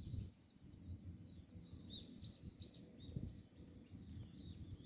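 Faint chirping of small birds: short, high calls that sweep down in pitch, most of them about halfway through, over a low background rumble.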